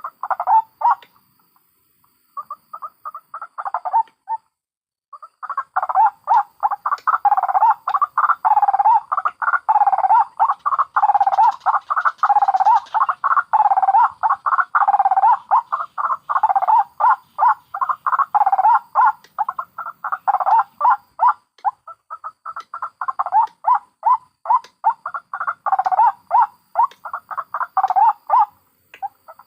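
White-breasted waterhens (ruak-ruak), adults and chicks, giving rapid, repeated croaking calls in a dense run. There is a short pause about four seconds in; the calling then becomes almost continuous and thins a little near the end.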